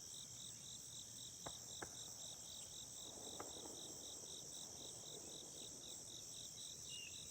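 Faint chorus of crickets: a steady high trill with a second insect pulsing about four times a second. A few faint sharp clicks sound about a second and a half in and again a little later.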